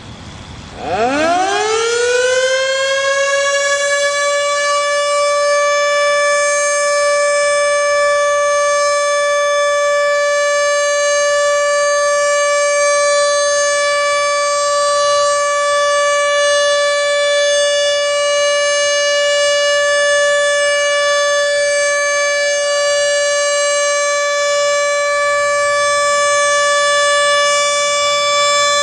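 Federal Signal Model 2 electromechanical warning siren sounding a test: it winds up quickly about a second in, then holds one steady, loud tone.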